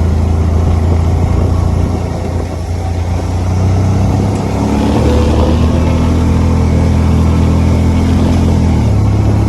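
Honda Talon 1000R side-by-side's parallel-twin engine running under load. Its pitch climbs about four seconds in, holds, then drops back shortly before the end.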